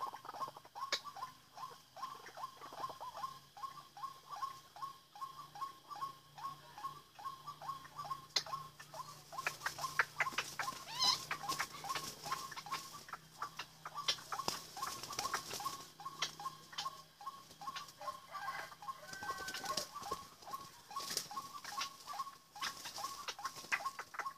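White-breasted waterhen calls: a long run of short, evenly repeated notes with scattered higher chirps and clicks mixed in.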